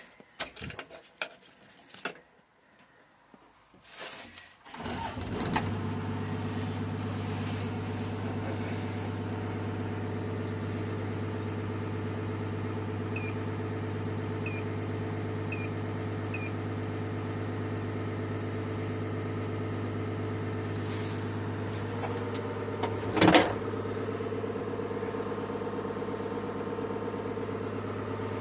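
Daewoo Doosan 170 excavator's diesel engine, heard from inside the cab, starting about five seconds in and then idling steadily. Four short electronic beeps come a little under halfway through, and one loud knock about two-thirds of the way in.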